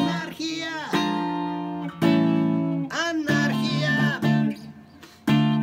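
Electric guitar played through a small Peavey combo amp: chords struck about once a second and left to ring, with sliding pitch between some of them, then one last chord struck near the end, closing the song.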